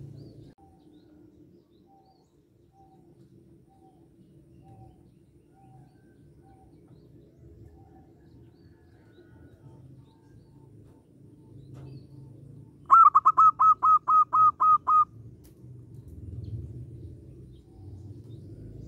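A bird gives a quick, loud series of about nine sharp, evenly spaced notes lasting about two seconds, a little past the middle, over a faint low hum. Fainter short calls repeat about once a second in the first few seconds.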